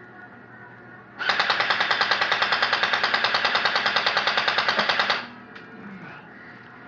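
Airsoft M16 rifle firing a full 30-round magazine on full auto: a fast, even rattle of about eight shots a second that starts about a second in, lasts about four seconds and cuts off abruptly.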